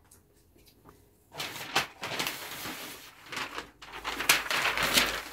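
Large sheet of pattern paper rustling as it is handled, lifted and laid flat over another sheet on a table, starting about a second and a half in.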